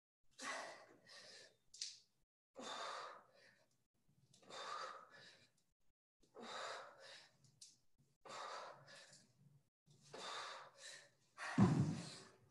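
Heavy, rhythmic breathing of a person mid-workout, a loud breath about every two seconds, with a louder thump near the end.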